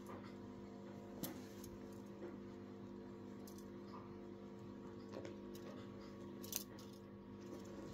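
Faint rustles and a few soft clicks as a cat plays with a string wand toy on a shag carpet, the clearest about a second in and near six and a half seconds, over a steady low hum.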